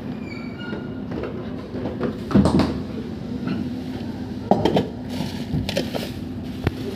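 A few sharp knocks and clanks of a stainless steel food pan and its lid being handled, over a steady low hum.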